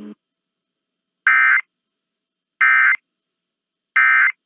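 Emergency Alert System End-of-Message data bursts: three identical short buzzy chirps of digital data tone, each about a third of a second long, spaced about 1.3 seconds apart. They signal the close of the EAS test.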